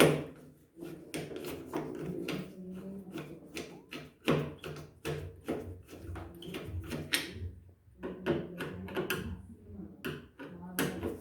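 Irregular metal clicks and knocks of a steel door handle and its lock parts being fitted and handled during reassembly, with a faint voice in the background.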